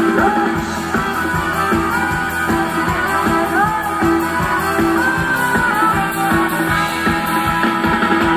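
Live Thai ramwong dance band playing: a melody line gliding over a steady, even beat.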